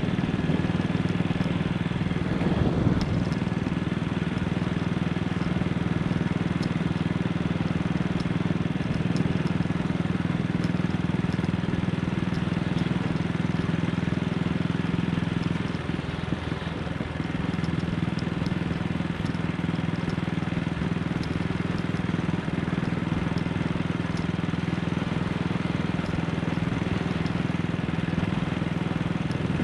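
AJS Model 8 motorcycle engine running steadily at an even pitch, with a brief change in the sound about halfway through.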